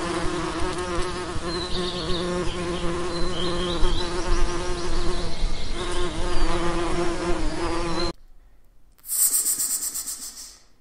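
An insect buzzing steadily, cutting off sharply about eight seconds in. A short hiss follows near the end.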